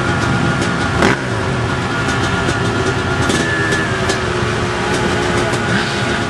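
Many enduro dirt-bike engines running at once, idling and blipping their throttles in a dense overlapping din, with a sharp knock about a second in.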